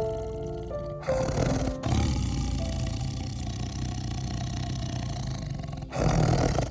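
A large animal roaring in long, rough calls, loudest just after the start and again near the end, over light background music whose notes are heard in the first second.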